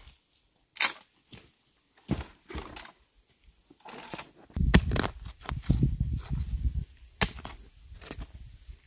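Four sharp knocks or chops about two seconds apart, with a rough low crunching between the third and fourth.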